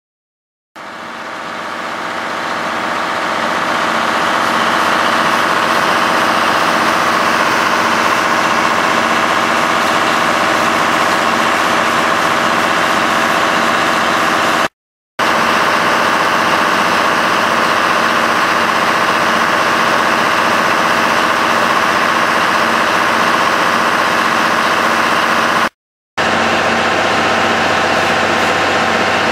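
Steady hum of a stationary diesel-hauled passenger train, its diesel engine idling. The hum fades in at the start and cuts out briefly twice.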